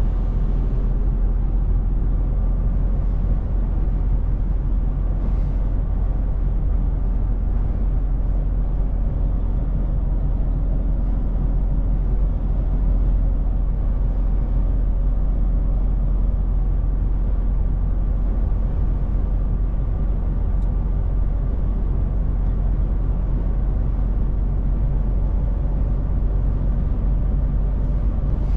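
Steady running noise of a DAF truck cruising at highway speed, heard inside the cab: a low diesel engine hum mixed with tyre and road noise.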